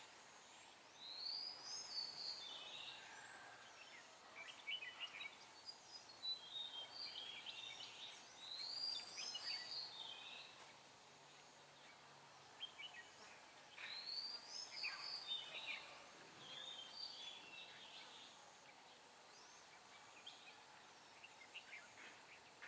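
Red-whiskered bulbuls singing: short phrases of bright, warbling whistles that come every few seconds, with quieter gaps between.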